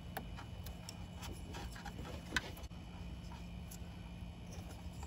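Faint scattered clicks and scratches of fingers and a razor blade working at a car wiring harness, peeling back its tape sheathing, with one sharper click about halfway through. A steady low hum runs underneath.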